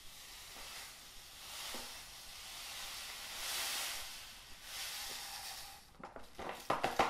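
Gelling sugar pouring from a carton onto cut plums in a steel bowl: a steady granular hiss that swells about three and a half seconds in, then a few light knocks near the end as the carton is shaken out.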